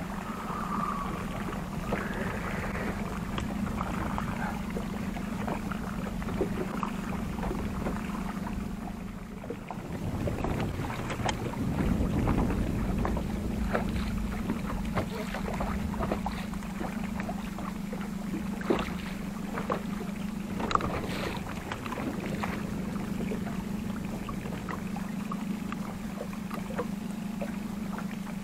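Boat's outboard motor idling with a steady low hum, with a brief rush of wind or water noise about ten seconds in and a couple of sharp clicks later on.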